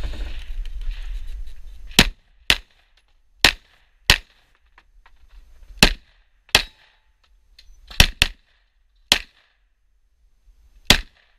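Semi-automatic pistol firing ten shots, mostly in pairs, starting about two seconds in and spread over roughly nine seconds.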